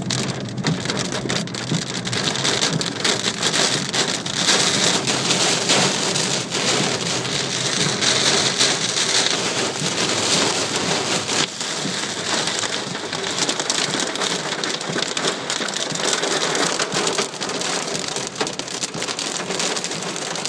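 Heavy downburst rain with hail drumming densely and steadily on a car's roof and windscreen, heard from inside the cabin.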